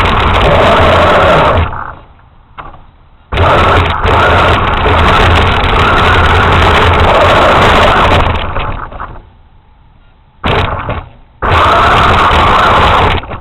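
RC truck's motor running at full throttle in four bursts, cutting off between them.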